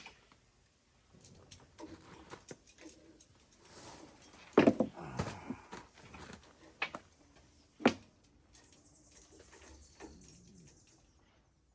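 Hand tools clinking and knocking against metal parts while a lift kit is fitted, with a cluster of knocks about four and a half seconds in and a sharp single knock near eight seconds.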